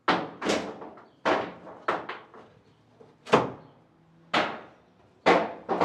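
About nine sharp wooden knocks at uneven intervals, each dying away quickly: loose pieces of pine board striking the plank ceiling.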